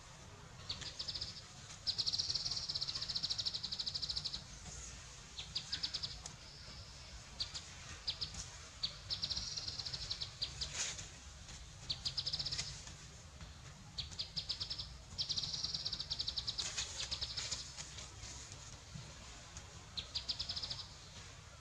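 Repeated high, rapidly pulsed trills from forest wildlife, each lasting from about half a second to two seconds and coming every second or two, over a faint low rumble.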